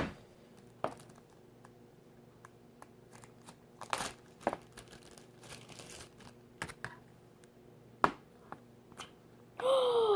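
Plastic wrapping around a slime container being handled and opened, with scattered crackles and clicks. Near the end, a short vocal 'oh' falling in pitch.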